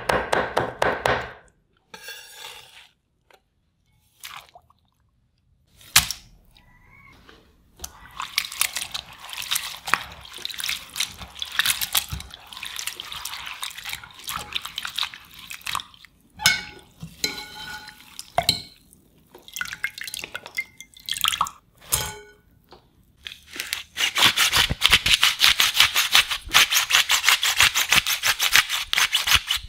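A knife chops julienned raw potato on a wooden cutting board in quick strokes, then stops; a single sharp knock follows a few seconds later. Hands swish and squeeze the thin potato strips in a glass bowl of water, rinsing off the starch, with splashing and dripping. Near the end a pepper grinder clicks rapidly and evenly as black pepper goes onto the drained strips.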